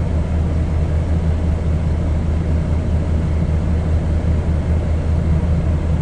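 Diesel engine of farm machinery running steadily at a constant speed, a loud, even low drone.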